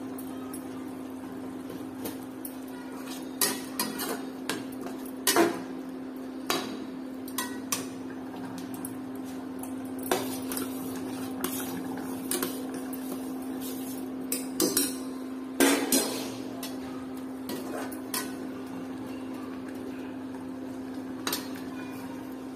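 A steel spoon stirring and scraping in a steel cooking pan, with irregular sharp clinks and knocks of metal on metal. A steady low hum runs underneath.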